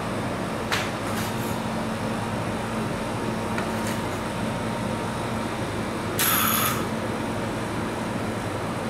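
Metal spatulas scraping and tapping on a frozen ice cream roll plate over a steady mechanical hum. There is a sharp tap under a second in and a short, louder scrape about six seconds in.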